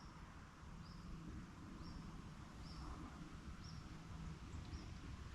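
A small bird repeating a short, high call about once a second, faint over a steady low rumble.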